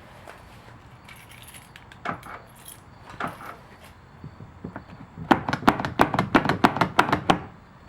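Small clicks and rattles from the truck's exterior door handle and its bracket while fishing line is worked free from between them. A few faint clicks come first, then about two seconds of quick, sharp clicking near the end.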